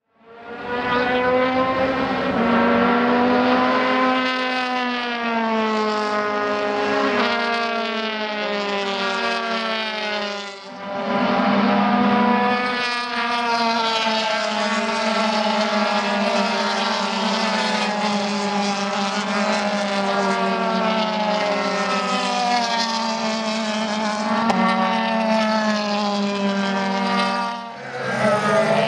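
Formula Renault 2.0 race car's four-cylinder engine running hard at high revs, its pitch rising and falling gradually. The sound dips briefly about ten seconds in and again near the end.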